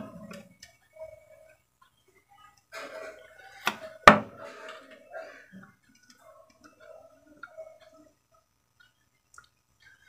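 Faint ticking and small clicks of hand soldering on a Bluetooth audio module's circuit board, soldering iron tip and solder wire touching the joint, with two sharp clicks about four seconds in.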